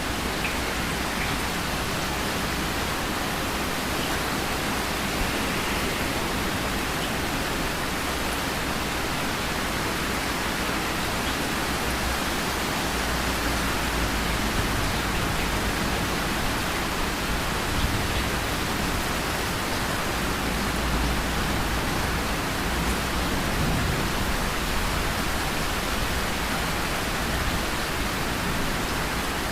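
Steady heavy rain, an even dense hiss, with a deep low rumble building in the background from about halfway through.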